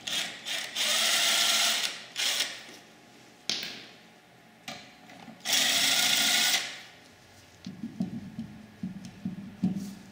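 Cordless impact wrench spinning off wheel lug nuts in two steady runs of about a second each, followed by a few light knocks and clicks as the wheel is handled.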